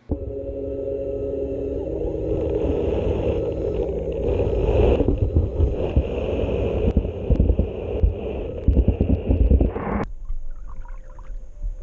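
Aiper Seagull 3000 cordless robotic pool cleaner running in the pool: a steady motor whine of several tones over a low churning rumble. It starts abruptly and cuts off suddenly about ten seconds in.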